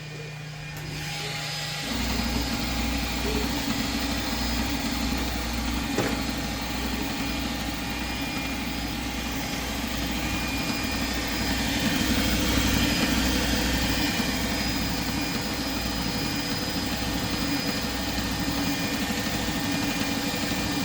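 Kingroon KLP1 Klipper 3D printer printing at speed: its motors buzz and whine, the sound flickering rapidly with each move, and it gets louder about two seconds in. A single sharp click about six seconds in.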